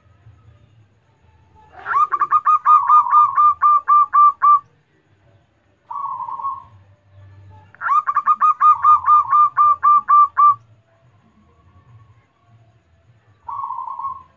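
Zebra dove (perkutut) singing: two runs of rapid staccato coos of about four notes a second, each run under three seconds. A short single coo falls between the runs and another near the end.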